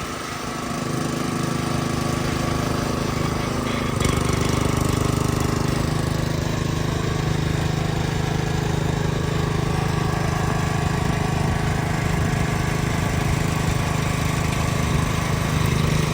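Timber King B20 band sawmill running with its blade off: the drive motor and hydraulic pump run steadily, and the sound steps up a little louder and heavier about four seconds in.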